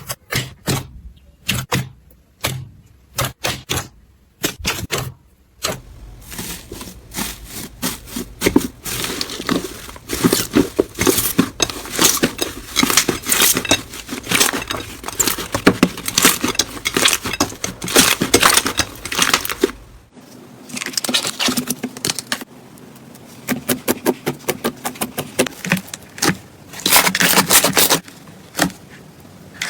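Slime being squeezed, pressed and poked by hand, giving rapid crackling and popping clicks. The clicks are sparse at first and become a dense crackle after about six seconds. The sound changes abruptly about 20 seconds in to another handful of slime with sharper, separate clicks.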